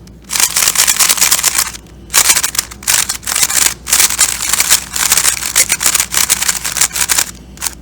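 GAN magnetic 3x3 speed cube being turned quickly in the hands: rapid plastic clicking and clacking of the layers, with three short pauses. The cube is dry and unlubricated, straight out of the box.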